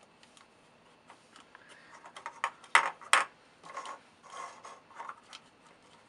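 Knife tip clicking and scraping against the thin aluminium top of a soda can as small air holes are punched through it, with two sharper clicks about three seconds in.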